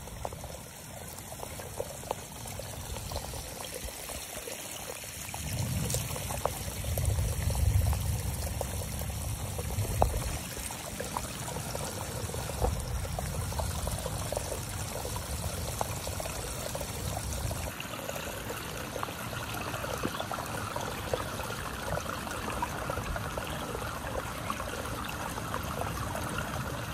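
Storm water running steadily out of the mouth of a 6-inch SDR35 PVC drainage discharge pipe: the runoff from the roof downspouts and French drain flowing freely out of the system after rain. A low rumble rises under it for several seconds in the middle.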